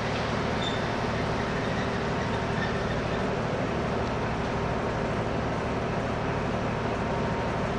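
Diesel engine of the DE 520 diesel-electric locomotive running steadily as the locomotive moves slowly along the track on its own.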